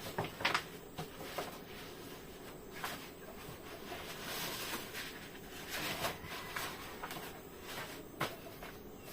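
Unboxing sounds: packaging and kit items being handled, with rustling and scattered light clicks and knocks.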